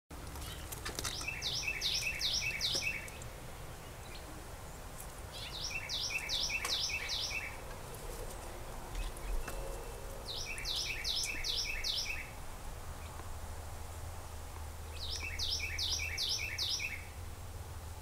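A songbird repeating a phrase of five or six quick, identical, high downslurred notes, four times, about every four and a half seconds, over a low steady background rumble.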